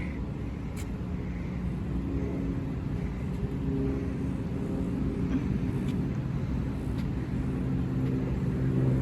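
An engine running steadily over a low outdoor rumble, its deep hum growing stronger near the end.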